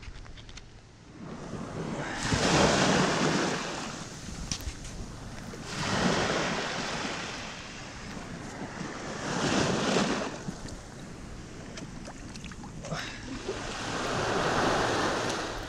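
Small waves breaking and washing up the sand at the water's edge, swelling and fading four times a few seconds apart.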